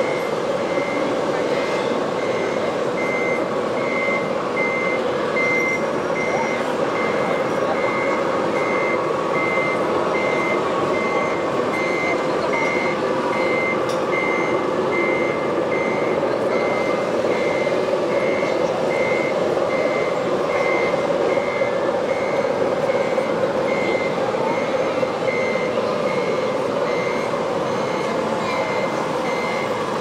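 Reversing beeper on a 1:8 scale RC construction truck's sound module, a single high beep repeating evenly about twice a second over steady background noise.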